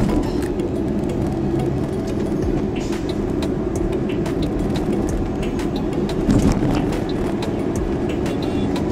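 Road and engine noise heard from inside a moving car cruising at steady speed, a continuous low rumble with frequent small clicks and a brief louder swell about six seconds in.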